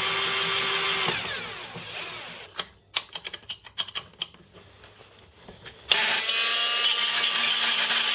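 Cordless drill-driver driving screws into a birch plywood block: it runs steadily for about a second and then winds down. Sharp clicks and rattles of screws and small parts being handled follow, and the drill runs again from about six seconds in.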